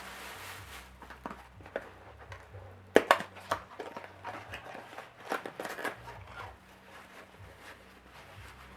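Packing material crinkling and crackling as a wrapped item is unwrapped by hand, with scattered crackles, the sharpest about three seconds in, then quieter handling.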